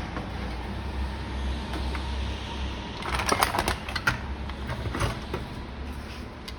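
Metal clutch parts and tools clicking and clinking as they are handled, in a quick cluster about three seconds in and a few single clicks after, over a steady low hum.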